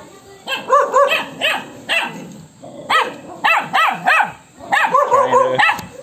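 Dog barking in a rapid run of about a dozen short, sharp barks, rising and falling in pitch. The dog is agitated, and a lower, drawn-out call comes near the end.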